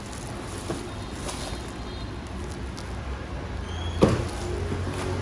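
A low steady rumble with faint handling clicks, and one sharp knock about four seconds in.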